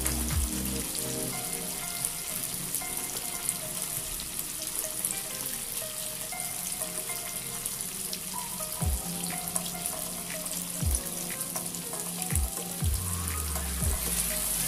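Slabs of tofu frying in shallow oil, a steady sizzle, with background music. A few dull knocks in the second half.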